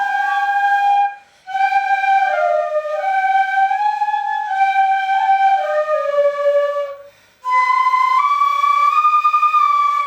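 Shinobue, Japanese bamboo transverse flutes, playing a slow stepwise melody in a middle-high register. Twice the melody stops briefly for a breath between phrases.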